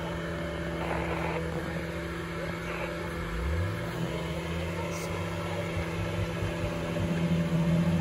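Off-road vehicle engine running steadily, with the revs rising briefly about three and a half seconds in.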